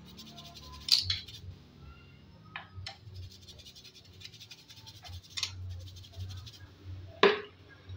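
Small stiff-bristled brush scrubbing a motorcycle's roller chain and rear sprocket: short scratchy strokes with light metallic clicks of the chain links, and one sharp knock near the end.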